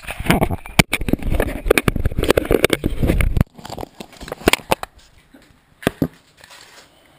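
Handling noise from a hand-held video camera being moved and set down: dense rubbing and bumping against the microphone for about three and a half seconds that stops suddenly, then a few single knocks.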